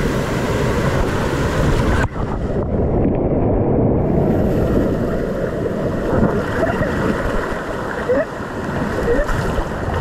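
Rushing, churning water of a rafting water slide, splashing against and around an inflatable raft as it runs down the channel, with water and air buffeting the microphone. The sound turns more muffled about two seconds in.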